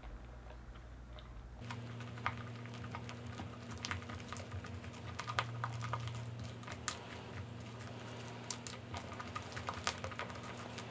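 Hand mixing shaving cream, cornstarch and paint in a glass bowl: wet, sticky squishing with many small clicks and crackles of the foam, thickening from about two seconds in. A steady low hum runs underneath.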